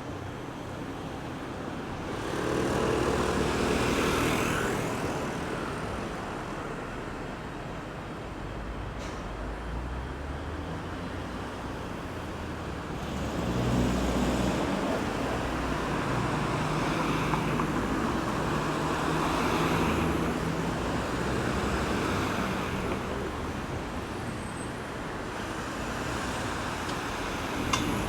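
Road traffic at a roundabout: cars and other motor vehicles passing, engine hum and tyre noise swelling as each goes by. It is loudest about two to five seconds in, then rises again from about halfway through as more vehicles pass.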